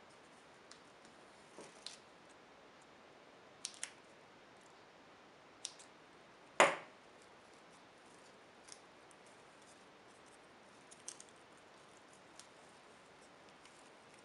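Scattered small clicks and taps of hands working tape around a battery and a small motor mounted on a brush head, with one much louder sharp snap about six and a half seconds in.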